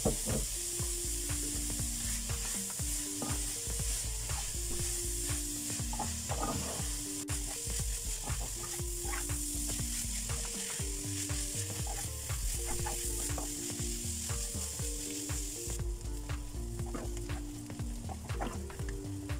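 Dried anchovies, peanuts and shallots sizzling in oil in a stainless steel wok, with a metal spatula scraping and clicking against the pan as they are stirred; the sizzle dies down about three-quarters of the way through. A simple background music melody plays underneath.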